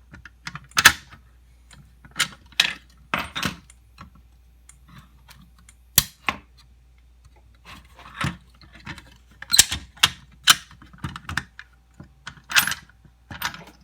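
Irregular clicks and light clattering knocks, about a dozen of them at uneven spacing.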